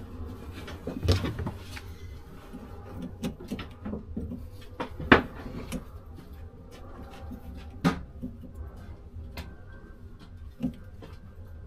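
Scattered metallic clicks and knocks of a screwdriver and hand tools working a fitting on water-heater pipework, with the sharpest knock about five seconds in, over a low steady hum.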